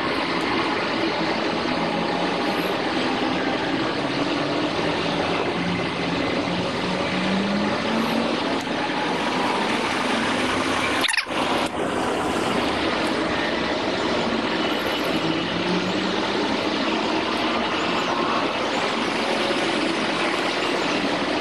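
Steady outdoor background noise with the low hum of distant vehicle engines rising and falling, broken by a brief drop-out about halfway through.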